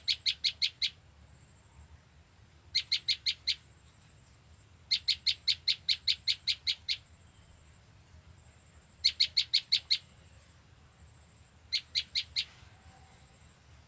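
A small songbird known as the prenjak lumut calling in bouts of rapid, sharp, high notes, about five notes a second. Five bouts come with short pauses between them, and the longest runs about two seconds.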